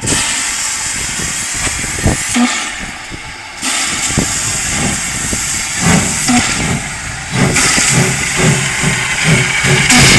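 Narrow-gauge steam locomotive pulling away with its train: hissing steam at first, then its exhaust beats settle into an even chuffing rhythm of several beats a second.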